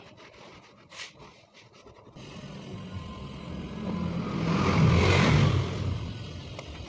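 A motor vehicle passing by: its noise swells to a peak about five seconds in and fades away.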